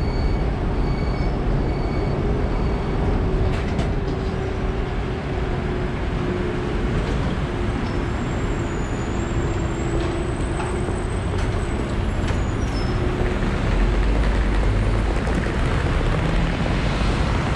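A high-floor Konstal tram pulling away from a stop and running along the platform: a steady motor hum over the rumble of steel wheels on rail, with a few short beeps at the very start and a thin high wheel squeal from about eight to eleven seconds in. Near the end a deeper rumble builds as another tram draws in alongside.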